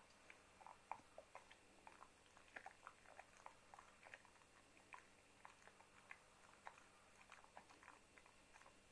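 Chow chow chewing and gnawing on something held between its paws: faint, irregular crunching clicks, a few a second.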